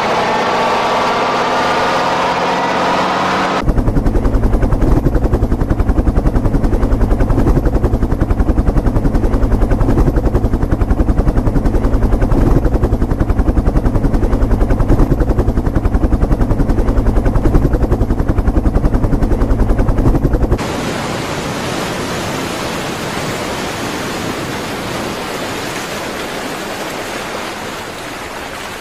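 Heavy military trucks' engines running with a rising engine whine for the first few seconds, then after a sudden cut a UH-1 Huey-type helicopter's two-blade rotor beating in a fast, even, loud rhythm. After another cut, at about 20 seconds, a steady rushing noise of sea and wind that slowly fades near the end.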